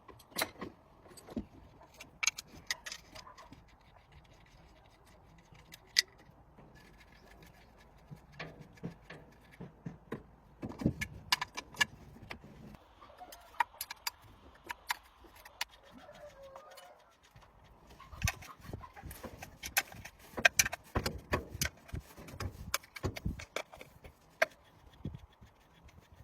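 Irregular metallic clinks and knocks, as of hand tools and engine parts being handled and set down, with short quiet gaps between.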